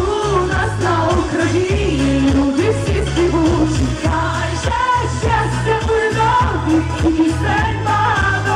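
Pop song played over a stage PA: a woman singing into a microphone over backing music with a steady, pulsing bass beat.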